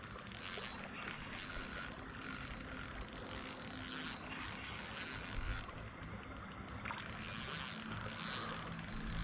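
Fishing reel clicking and whirring steadily while a hooked bream is played in on the line.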